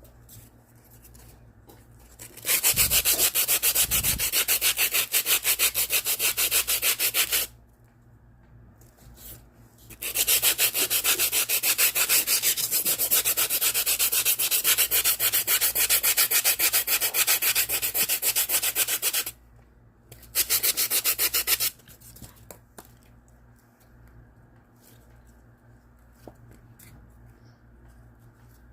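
Rapid, rhythmic scraping or rubbing strokes in three runs: about five seconds, then about nine seconds, then a short burst. Two dull thumps come during the first run, with quiet handling noise between runs.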